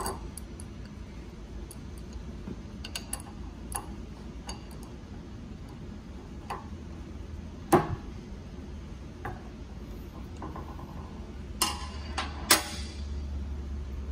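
Adjustable wrench clicking and clanking on the metal cap of a hydraulic pump's pressure-relief valve as the cap is loosened. Scattered light ticks, a sharper knock about eight seconds in and two more near the end, over a steady low hum.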